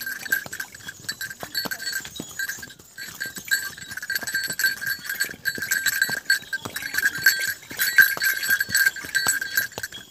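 Horse walking on a stone path, its hooves clopping in an irregular run of knocks, under a steady high-pitched ringing that drops out briefly about three seconds in.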